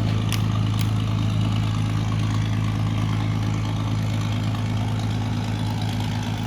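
A vehicle engine running steadily, an even low hum with no change in speed. Two faint clicks come in the first second.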